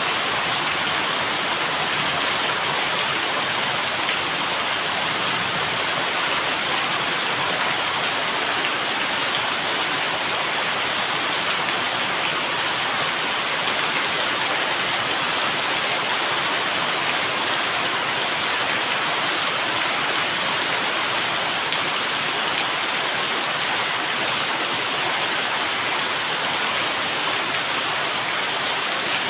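Rain falling steadily, an even, unbroken hiss with no single drops or thunder standing out.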